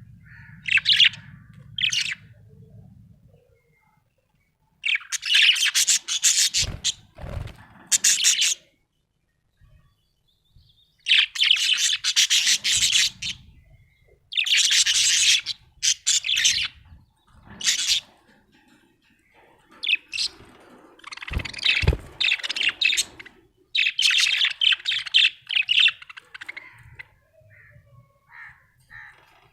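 Budgerigar chirping and warbling in chattering bursts of one to three seconds, with short pauses between. A few brief low knocks come through about a quarter and three quarters of the way in.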